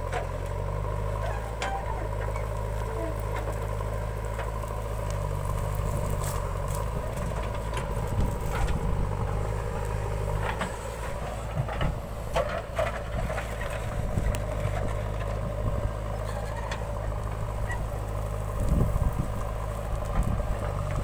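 JCB 3DX backhoe loader's diesel engine running under load as the backhoe arm digs and swings, its note shifting as the hydraulics work. Scattered knocks and scrapes of the steel bucket against soil come through in the middle and again near the end.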